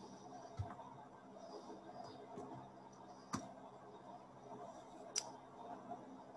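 Three faint, short clicks, about half a second in, past the middle and near the end, over a low steady room hum.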